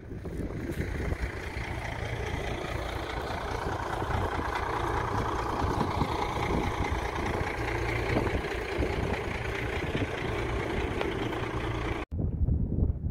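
A boom truck's engine running steadily, with wind buffeting the microphone. It cuts off about a second before the end, and only gusty wind noise follows.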